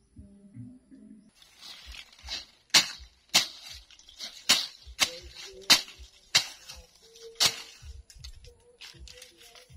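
Machete blade chopping into dry branches and brush on the ground: a run of sharp, loud strikes, the heaviest about one every half second to second, from about a second and a half in until about seven and a half seconds in.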